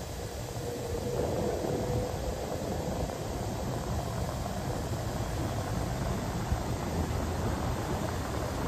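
R62A subway train approaching through the tunnel: a steady low rumble that grows slightly louder after about a second, with a faint thin tone over it for the first couple of seconds.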